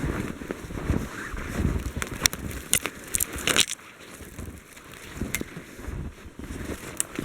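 Wind rumbling on the microphone, with uneven low thuds of walking and several sharp crackles in the middle.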